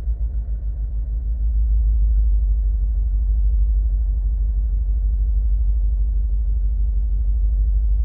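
Mercedes-AMG G63's M278 5.5-litre twin-turbo V8 idling with a low, uneven rumble, heard from inside the cabin. It gets louder and steadier about a second and a half in. The idle is sagging because the fuel pump has been switched off in a scan-tool actuation test, on an engine logging misfires on several cylinders.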